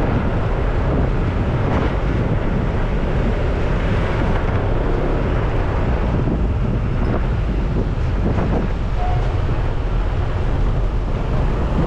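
Steady wind noise rumbling on a GoPro's microphone from riding a Honda PCX 150 scooter, with road and traffic noise underneath.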